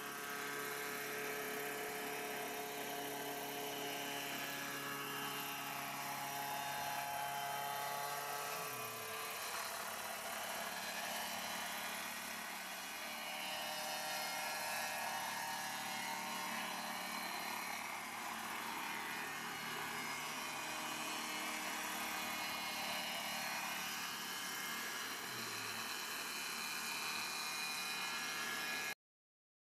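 A 63 cc mini helicopter's engine and rotors running steadily with a high whine; its pitch dips briefly twice. It stops abruptly near the end.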